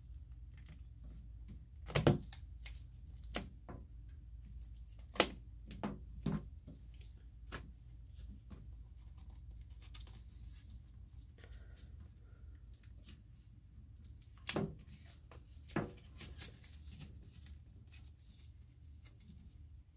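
Plastic shrink-wrap on a vinyl LP sleeve being picked at and peeled off by hand, crinkling and tearing in scattered sharp crackles, loudest about two, five and fifteen seconds in.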